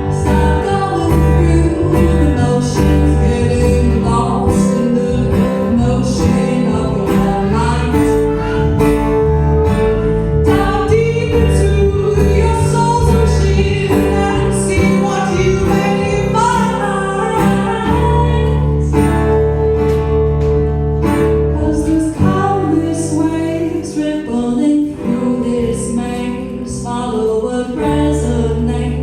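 A woman singing a song to strummed guitar accompaniment.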